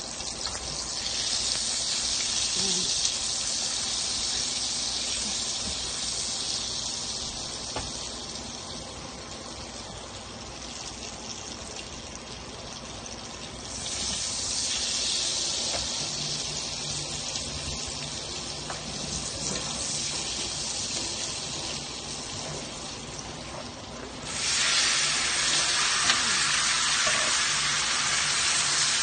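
Butter sizzling in a hot frying pan, a steady hiss that gets louder about halfway through. Near the end it jumps louder still as raw shrimp go into the hot butter.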